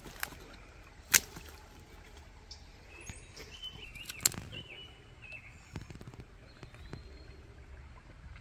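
Birds calling against a low steady outdoor background, broken by a few sharp clicks, the loudest about a second in and another about four seconds in, from a spinning rod and reel being handled and cast.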